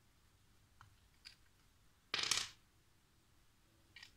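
Small plastic Lego pieces clattering as a hand moves through them: a few faint light clicks and one short rattle about two seconds in.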